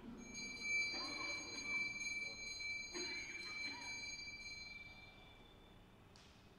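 A small puja bell rings with a clear high tone that fades away over about five seconds, over low murmured chanting.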